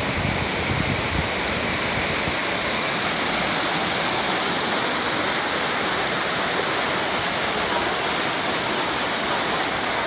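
Waterfall: a steady, even rush of water falling down a rock face and splashing. A few low rumbles in the first second.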